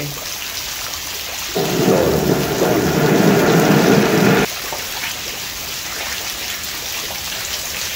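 Heavy rain pouring steadily into wide puddles on bare ground. From about a second and a half in, a louder, deeper noise sets in on top of the rain and stops abruptly about three seconds later.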